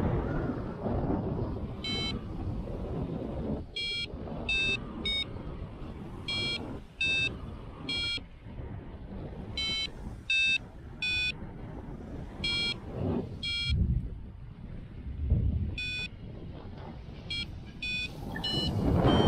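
Paragliding variometer beeping in short beeps of shifting pitch, the climb tone that signals rising air, over wind rushing on the microphone in flight. The wind grows louder near the end.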